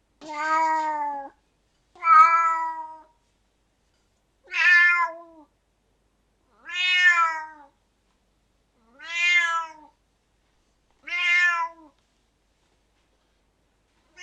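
Domestic cat meowing: six separate meows, each about a second long, coming about every two seconds.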